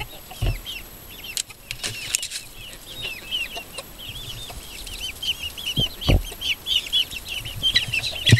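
Chicks peeping almost continuously, many short high calls a second, growing busier in the second half, with hens around them. Two low thumps sound near the start and about 6 seconds in.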